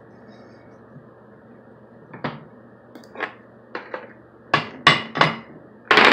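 Hammer blows on the steel yoke of a drive-shaft CV head, driving out a universal-joint bearing cap. There are about seven separate strikes, half a second to a second apart and getting louder, then a quick flurry of blows right at the end.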